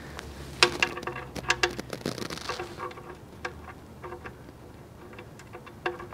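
Light metallic clicks and taps, several with a brief ring, as a new sump plug and crush washer are handled and started by hand into a car's oil pan. The clicks come thick in the first half and thin out to a few later on.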